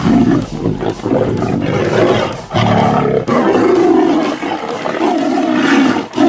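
Two tigers fighting, roaring and snarling again and again with short breaks.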